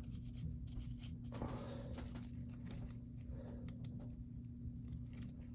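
Faint scratching and small clicks of handwork on the opened phone's power-switch parts, over a steady low hum.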